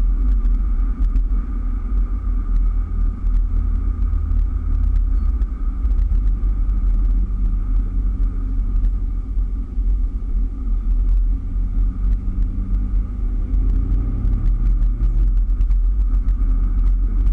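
Engine and road noise inside the cabin of a moving 2003 Daihatsu Terios: a steady low rumble under the engine's hum. The hum steps up in pitch about six seconds in, climbs slowly, then drops back near the end.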